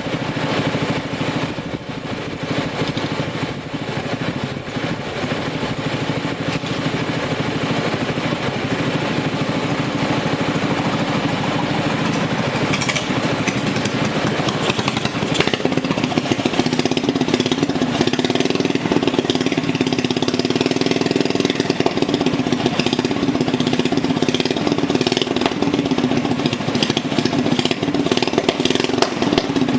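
Racing lawn mower's small engine running steadily, then speeding up about halfway through and holding at the higher speed, with scattered clicks and knocks over it.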